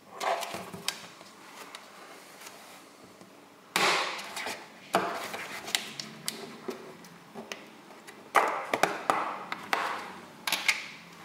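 A plastic ice cream tub being opened by hand: the lid and the seal over the ice cream crinkle and rustle as they are handled and peeled off, in several bursts with sharp clicks of plastic between them.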